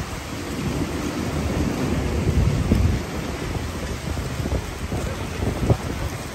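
Loud, rough rumbling of city street noise heard on a walking vlogger's microphone, swelling a little about two and a half seconds in.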